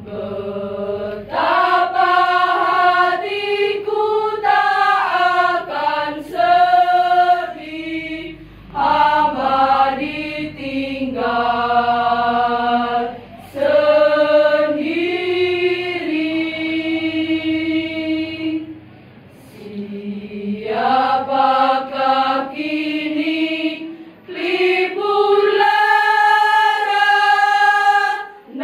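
A women's choir singing in long, held phrases, with short breaks between them.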